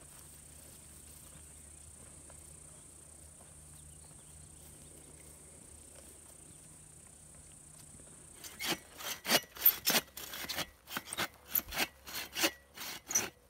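Hand saw cutting through a dry, weathered dead log in quick back-and-forth strokes, about three a second, starting about two-thirds of the way in after faint background hiss.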